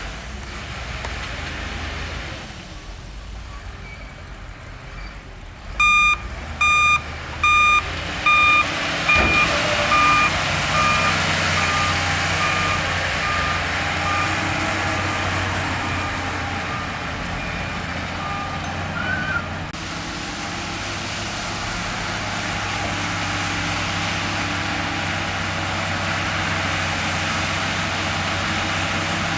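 Diesel engines of heavy earthmoving machines running steadily. About six seconds in, a dump truck's reversing alarm starts beeping a little faster than once a second, loud at first, then growing fainter and stopping after about twelve seconds.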